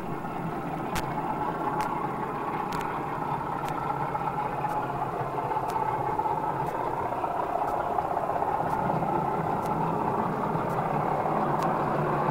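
Model train running on the layout's main line: a steady electric-motor hum and wheel rumble that grows louder toward the end as the train nears, with light clicks about once a second.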